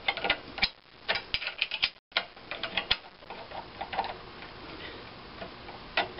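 A wrench clicking and clinking on the bracket bolt nuts of a 1927 McCormick-Deering engine's cast-iron rocker arm bracket as the bolts are retightened: a run of quick, irregular light metal ticks, busiest in the first three seconds.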